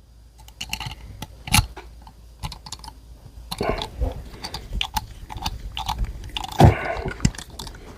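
Irregular clicks, taps and small scrapes of metal parts and tools being handled as a part is worked into a stubborn threaded hole on an air rifle, with a louder knock about a second and a half in and another near the end.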